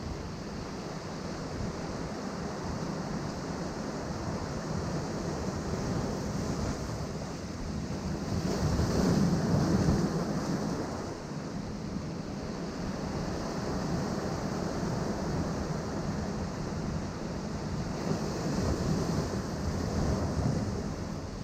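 Ocean waves breaking on rocks, a continuous wash of surf that swells into a louder surge about halfway through and again near the end, with some wind on the microphone.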